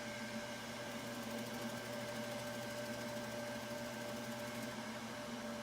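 Wood lathe running steadily at raised speed with a constant motor hum, spinning a birch burl bowl during its beeswax finish.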